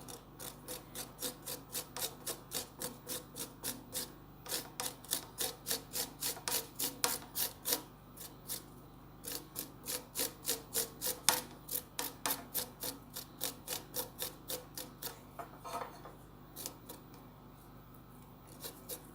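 Garlic clove being grated on the fine side of a hand grater: rasping strokes at about two to three a second, with short pauses. The strokes thin out to a few scattered scrapes after about fifteen seconds.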